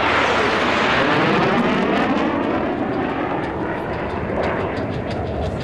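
USAF Thunderbirds F-16 Fighting Falcon jets passing overhead: a loud jet-engine roar with a sweeping whoosh as a jet goes by, easing off a little after the first few seconds.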